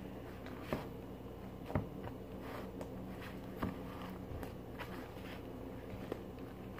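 Soft sticky clicks and squelches of slime being kneaded by hand, scattered through, with a few louder ones, over a steady low background hum.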